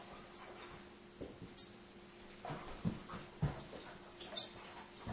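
Airedale terrier whimpering and panting quietly. A couple of short, sharp clicks come about one and a half seconds in and again near the end.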